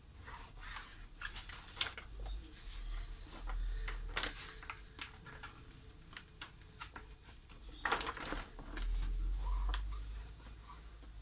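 A sheet of carbon-fibre-pattern vinyl wrap film, with its paper backing, crackling and rustling as it is lifted, flexed and smoothed flat by hand. Irregular crinkly clicks, loudest about four seconds and eight seconds in.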